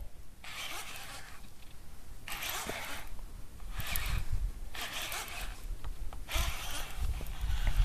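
Baitcasting reel being cranked in about five separate bursts of a second or so each, a whirring buzz while the line is wound in under load.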